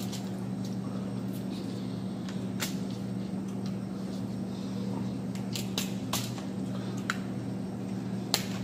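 Crab legs being cracked and picked apart by gloved hands: short, scattered shell cracks and clicks, about eight in all, over a steady low hum.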